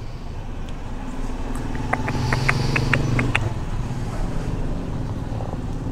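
A motor vehicle engine running steadily, a low hum that swells through the middle. About two seconds in, a quick run of about eight small clicks, some five a second.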